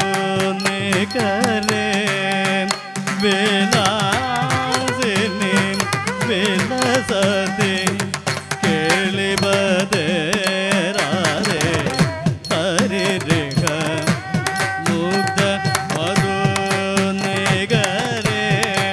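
Live Carnatic music: a violin melody over a steady drone, with hand-drum strokes and singing.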